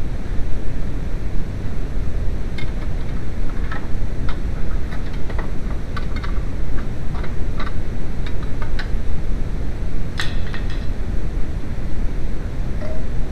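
A steady low shop rumble, with a scatter of light metallic clinks and ticks of hand tools being handled, the sharpest about ten seconds in.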